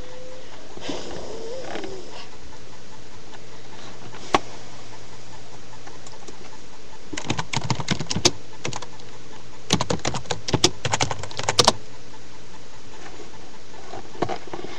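Typing on a computer keyboard: a single keystroke about four seconds in, then two short runs of keystrokes in the second half, over a steady background hiss.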